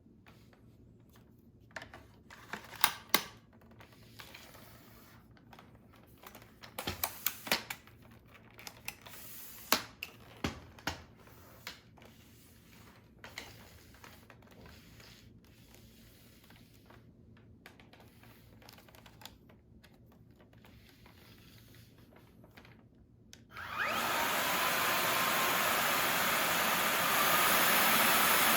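Scattered clicks and knocks, then a Samsung Bespoke Jet cordless stick vacuum switches on suddenly near the end and runs with a steady loud rushing noise, getting a little louder a few seconds later.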